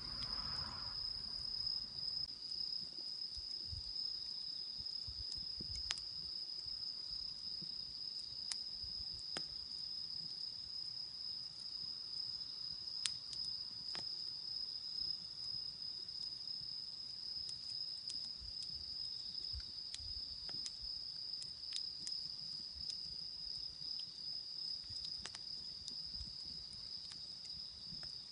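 Autumn insects singing in a steady, unbroken high chorus, with scattered faint pops from a wood fire.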